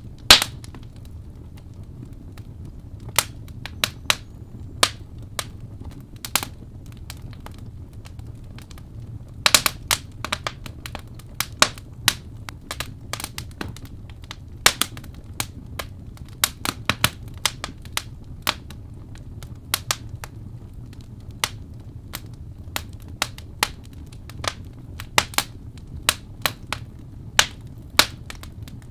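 Wood fire crackling: irregular sharp pops and snaps, several a second at times, over a steady low rumble.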